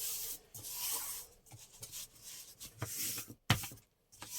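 Paper being handled on a tabletop: rustling and rubbing in spells, with a few light taps and a sharper knock about three and a half seconds in.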